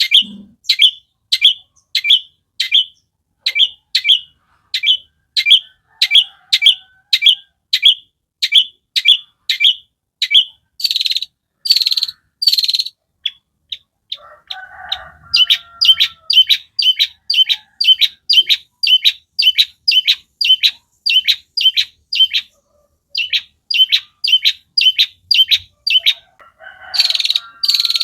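Long-tailed shrike (cendet) singing: a long run of short, sharp repeated notes at about two a second, broken a couple of times by a few louder, harsher notes.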